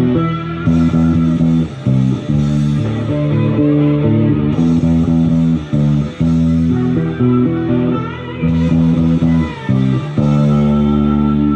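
Electric bass guitar playing a riff of low notes that change every second or less, then settling on one long held note near the end.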